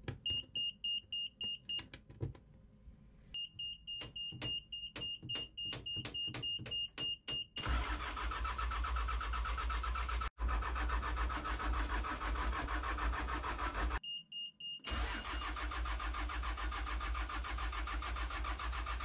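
A sailboat's inboard diesel engine being started just after its fuel filters were changed, with no way to prime the fuel system. The panel alarm beeps rapidly with the key on, the starter cranks for a few seconds, and about eight seconds in the engine catches and runs steadily. It is briefly interrupted near fourteen seconds, with the beeper sounding again, and then runs on.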